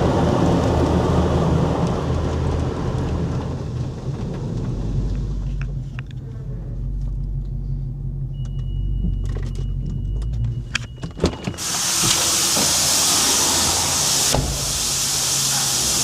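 Dodge Hellcat's supercharged V8 idling with a low rumble, with scattered clicks and a thin steady tone for a few seconds in the middle. From about twelve seconds in, a loud, even hiss of car-wash water spray takes over.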